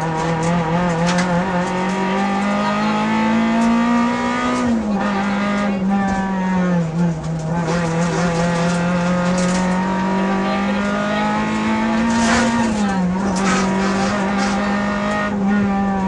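Renault Clio rally car's engine working hard, heard from inside the cabin at speed. The revs climb steadily, then drop sharply about five seconds in and again near thirteen seconds, as the car is driven through the stage.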